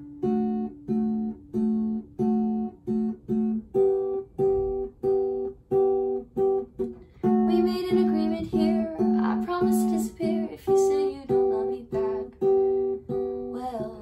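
Acoustic guitar, capoed at the seventh fret, fingerpicked in a steady repeating pattern of about two notes a second. A woman's voice sings along from about seven seconds in to about eleven seconds in.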